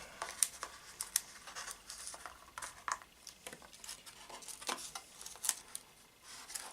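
Self-adhesive tape and strips of polyester (Mylar) film being handled and pressed down on a backing board: irregular small clicks, crinkles and taps throughout.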